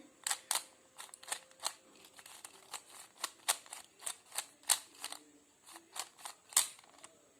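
3x3 Rubik's cube layers being turned through an algorithm: a run of short plastic clicks and clacks at an uneven pace of about two to three a second.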